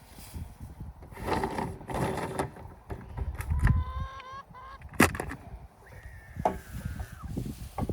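Poultry giving several short honk-like calls, then one longer call that falls slightly at its end, with handling noise and one sharp knock about five seconds in.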